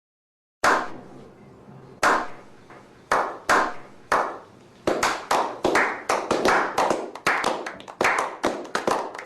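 A run of sharp percussive hits like claps or taps, sparse at first and then quickening to three or four a second.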